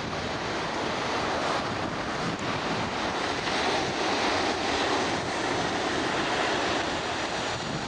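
Ocean surf breaking on the beach, a steady wash of waves swelling slightly in the middle, with wind rumbling on the microphone.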